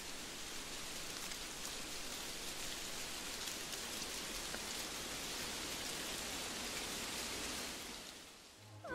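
A steady, even hiss like falling rain, fading out near the end.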